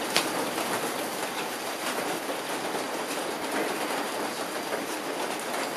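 Heavy rain falling in a steady downpour, an even hiss with scattered sharper drips and patters.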